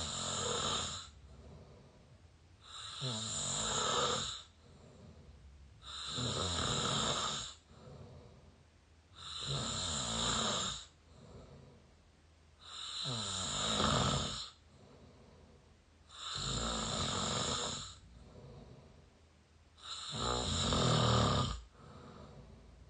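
A person mouth-snoring close to the microphone: seven snores at a steady pace of about one every three and a half seconds, each lasting over a second, with a much softer breath between them.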